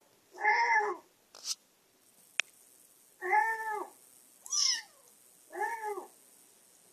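A kitten meowing four times, about a second or two apart, played back through a tablet's speaker; the third meow is higher and falls in pitch. A single sharp click comes between the first and second meows.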